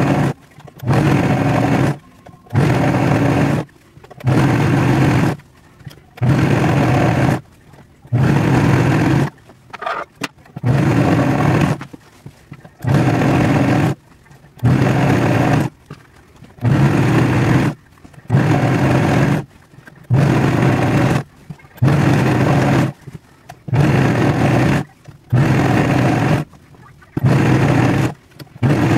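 A serger (overlock sewing machine) running in short bursts, each about a second long, stopping briefly and starting again roughly every one and a half seconds as fabric is fed through it.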